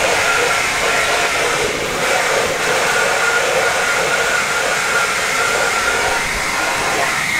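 Leaf blower running steadily with a thin, high whine, its air rushing out of a corrugated plastic drain pipe and spraying water and sludge into a pool skimmer net.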